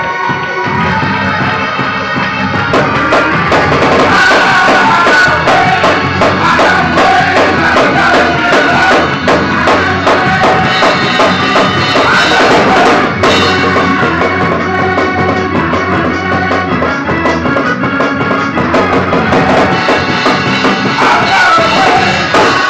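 Live church music: a drum kit played with a fast, busy beat alongside a sustained organ.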